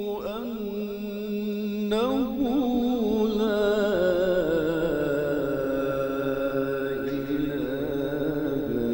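A male Quran reciter chanting in the melodic mujawwad style: long held phrases with wavering ornaments. About four seconds in, the pitch slides lower and the note is held.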